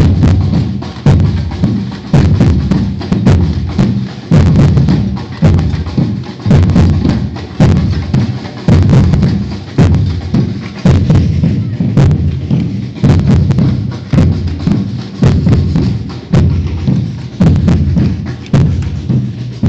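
Batucada percussion ensemble playing a Brazilian samba rhythm: deep bass drums keep a steady pulse with a strong accent about once a second, under sharp, fast strikes of snare and wood-block-like percussion.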